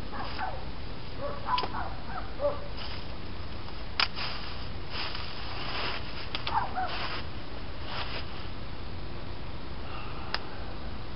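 Wood fire crackling, with a few sharp pops, the loudest about four seconds in. Short wavering calls from an animal come in among them during the first seven seconds.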